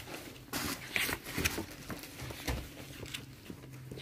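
Glossy catalogue pages being handled and turned: a few short paper rustles and slaps in the first couple of seconds, then a faint low hum.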